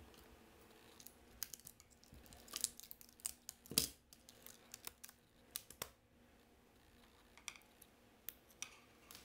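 Light, scattered clicks and scrapes of small hand tools and parts against an opened iPhone 6 Plus, busiest in the middle seconds, over a faint steady hum.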